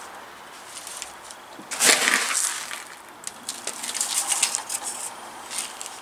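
Gritty granular bonsai substrate poured from a plastic cup into a plastic pot in one short, rattling pour about two seconds in. The grains then crunch and click in scattered bits as they are pressed and worked in by hand.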